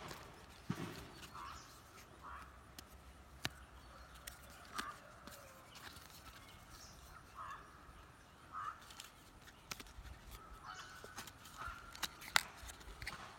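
Hands handling the paper leaflet and card backing of a microSD card package: soft scattered rustles and sharp clicks, the loudest about a second before the end. Faint short animal calls sound now and then.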